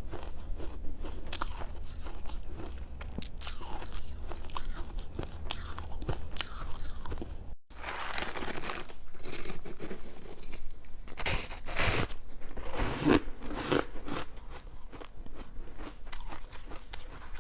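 A person biting and crunching ice close to the microphone: repeated crisp crunches and crackles at an irregular pace, broken by a split-second gap about halfway through.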